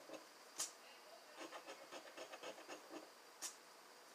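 Faint scraping of a round scratcher rubbing the coating off a scratch-off lottery ticket in quick short strokes. Two sharp clicks stand out, one about half a second in and one near the end.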